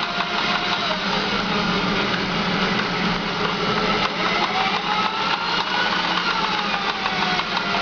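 Electric drill spinning a Honda Steed 400's oil pump: a steady whir with a fast rattling knock, and a pitch that slowly wavers as the drill's speed drifts. The knock is the noise the owner traces to the oil pump.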